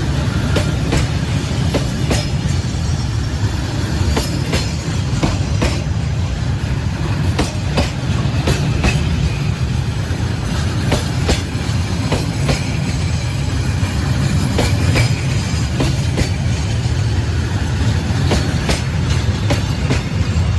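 Freight train HH42 running on the rails: a steady low rumble with irregular clicks as the wheels cross rail joints.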